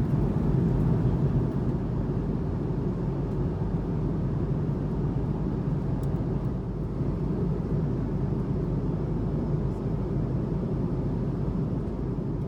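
Steady cabin drone of an Airbus A330-300 airliner in flight: engine and airflow noise heard from inside the passenger cabin, a low, even rumble.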